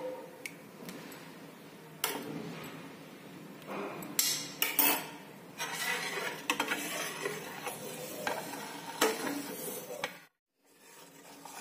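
A long steel spoon stirring hot milk in a steel pot, scraping and clinking against the pot's sides and bottom at irregular moments while vinegar curdles the milk for paneer. The sound cuts out suddenly for a moment near the end.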